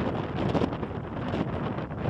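Storm-force wind buffeting the microphone in uneven gusts, a rushing, rumbling noise that swells and eases.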